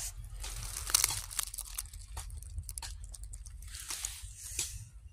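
Dry fallen leaves crackling and rustling as a hand moves through leaf litter on the ground, with a sharp crunch about a second in and another flurry of rustling near four seconds.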